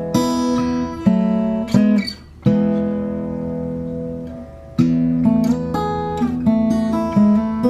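Acoustic guitar music: slow strummed chords, each ringing on, with a short pause about two seconds in.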